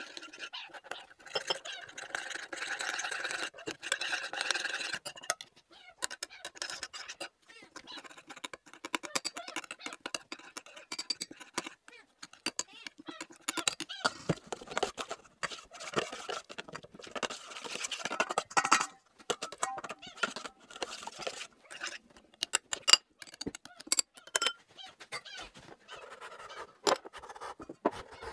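A kitten mewing in a run of calls for the first few seconds, then a metal spoon clinking and scraping against a stainless steel bowl as milk is stirred.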